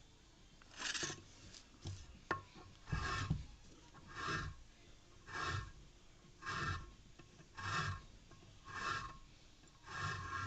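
A hand-turned valve-seat cutter scraping metal from a valve seat in a Chevrolet Niva cylinder head, truing the seat before the valves are lapped. It makes a rasping stroke about once a second, with a single sharp click about two seconds in.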